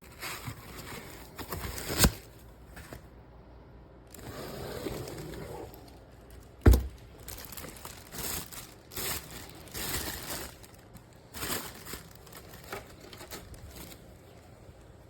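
Crinkling and rustling handling noises, irregular and on and off, broken by two sharp knocks: one about two seconds in and a louder one about halfway through.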